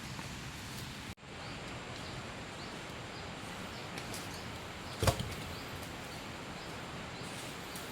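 Steady hiss of heavy rain, with one sharp chop-like strike, such as a blade hitting wood, about five seconds in.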